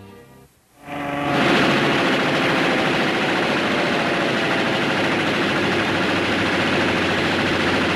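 Fighter aircraft's piston engine, a dense steady drone that swells in about a second in and holds.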